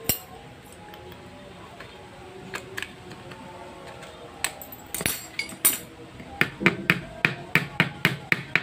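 Sharp metallic taps and clinks of a hand tool working a metal shim plate into the hub of a scooter's plastic cooling fan: a few scattered clicks, then a quick run of about a dozen taps, roughly five a second, over the last two seconds.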